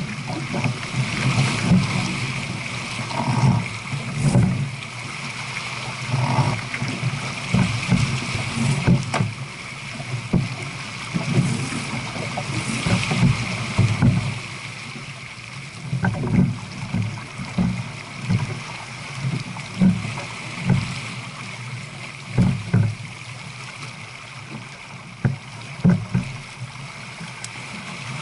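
Water rushing and splashing past the hull of a J/24 keelboat running downwind at about 7 knots, with irregular low thumps throughout.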